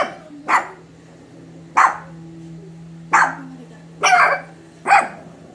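Shih Tzu barking: six sharp, high barks at uneven intervals, the fifth one a little longer.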